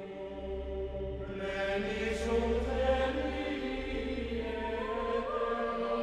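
Slow sung chant in long held notes, the melody moving gradually and stepping higher near the end, over a low hum for the first few seconds.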